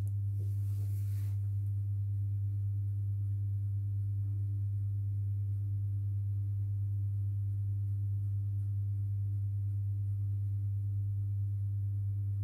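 A steady low hum, one constant tone that does not change.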